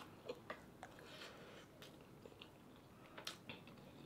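Quiet eating sounds: chewing, with scattered small clicks of wooden spoons and a ladle against plates and a pan.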